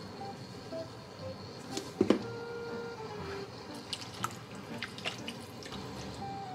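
Black plastic ladle stirring and scooping pork and intestine pieces in broth in a stainless steel pot: liquid sloshing and dripping, with a sharp knock about two seconds in and a few lighter clicks later. Faint background music runs underneath.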